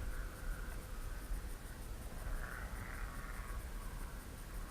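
Quiet outdoor background: a steady low rumble on the microphone with a faint high buzz that swells and fades, loudest around the middle.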